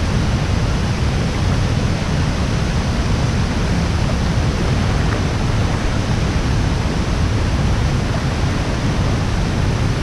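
Steady rush of a flooded, muddy river pouring over a small waterfall and churning close by.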